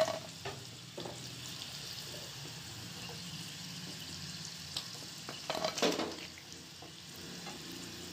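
Coated chicken strips sizzling steadily in hot oil in a frying pan, while a spatula scrapes and knocks against the pan as fried pieces are lifted out. There is a sharp knock at the very start and a louder burst of scraping about six seconds in.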